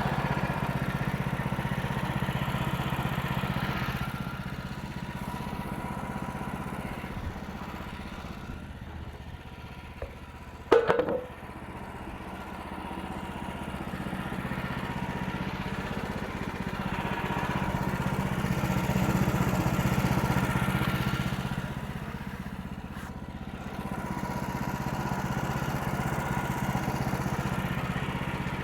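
Portable bandsaw sawmill's gas engine running steadily while the band blade cuts through a poplar log, the sound swelling and easing as it works. A single sharp knock about eleven seconds in.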